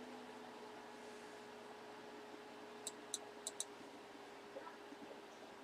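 Quiet room tone with a faint steady hum, broken by four light, sharp clicks in quick succession about three seconds in.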